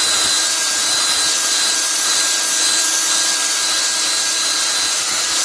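Crimped wire cup brush spinning at full speed on a power tool, scrubbing rust off a metal surface: a steady motor whine under a dense scratching hiss.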